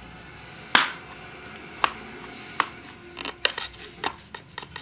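A kitchen knife cutting a slab of barfi into pieces in a plastic tray: sharp clicks and taps of the blade against the tray, the loudest about a second in, then a quicker run of them in the second half.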